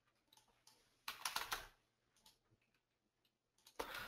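Computer keyboard typing and clicking, faint: a few scattered clicks, then a short quick run of keystrokes about a second in, and one more click a second later.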